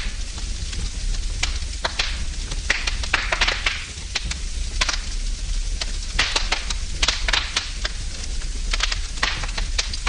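Wood fire burning in a fireplace: irregular sharp crackles and pops over a steady hiss and low rumble.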